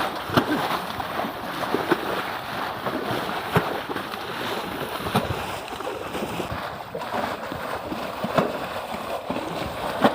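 Water splashing and sloshing against a small boat, with a sharp knock every second or two.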